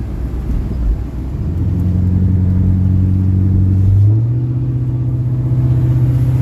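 Engine of the vehicle being driven, running under road rumble; its hum strengthens about a second and a half in and steps up in pitch about four seconds in, then holds steady.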